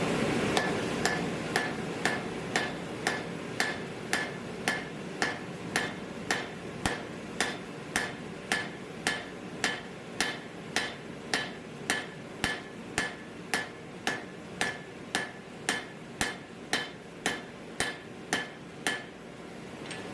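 Hammer blows on steel at an anvil, forge-welding the piece: a steady rhythm of about two strikes a second, each with a short metallic ring. The hammering stops about a second before the end. A steady rushing noise underneath fades out in the first two seconds.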